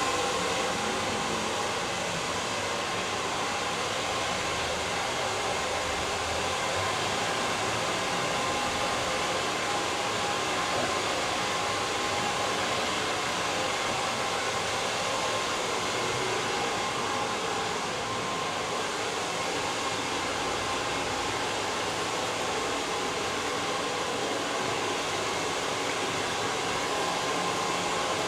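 Hand-held hair dryer switched on at the start and blowing steadily: an even rushing noise with a faint whine.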